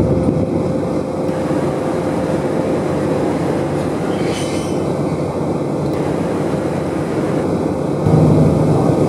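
Passenger ferry's engine drone and rumble heard on the open passenger deck, a steady low hum. There is a brief hiss about four seconds in, and the hum grows stronger about eight seconds in.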